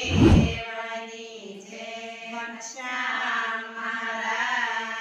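A group of women chanting a devotional prayer in unison, with slow held notes over a steady low drone. A heavy thump at the very start is the loudest sound.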